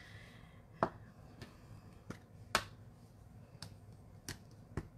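Scattered small sharp clicks and taps of stamping supplies being handled on a craft table: a clear acrylic stamp block and a plastic ink pad. The two loudest clicks come about one and two and a half seconds in.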